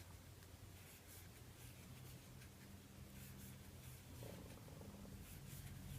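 Near silence: a faint steady low hum with soft, irregular rustling of yarn being worked with a crochet hook.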